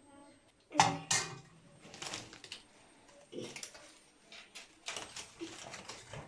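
A string of sharp knocks and clatters from hard objects being handled, the loudest pair about a second in, followed by lighter clicks.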